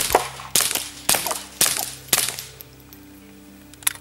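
Suppressed Ruger MK IV 22/45 Lite .22 LR pistol firing about six shots at a steady pace of roughly two a second, each a sharp crack with a short ring-out. The shooting stops a little over two seconds in, and a single short click follows near the end.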